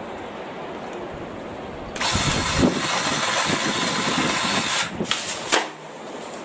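BLACK+DECKER 18V cordless power saw cutting tree branches: it runs loud and steady for about three seconds, stops, then gives two short bursts. Wind buffets the microphone throughout.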